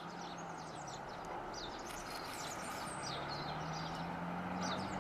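Outdoor ambience: a steady low hum under scattered short, falling high-pitched bird chirps.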